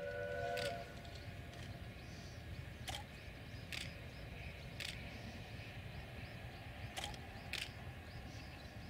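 An NGG16 Garratt steam locomotive's whistle sounds a chord of several notes at once and cuts off under a second in. A low, steady rumble from the distant locomotives working uphill follows, broken by a few sharp clicks.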